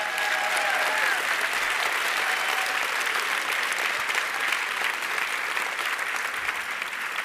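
Large audience applauding steadily, with a few faint voices cheering in the first second or so.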